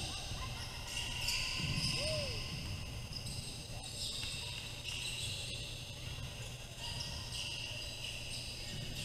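Basketball game ambience in a gym: a low murmur of crowd and court noise, a short squeak about two seconds in, and steady high-pitched ringing tones that come and go.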